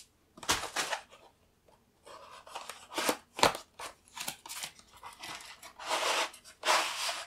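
A white cardboard mailer box and its packing being handled and opened by hand: several short rustling and scraping noises, with one sharp snap about three and a half seconds in.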